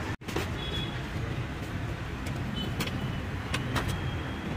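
Street traffic going by, motorbikes and cars giving a steady rumbling hum, with a few light clicks around the middle.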